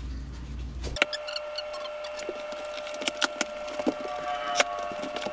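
Scattered sharp clicks and knocks over a steady high hum, after a low hum in the first second.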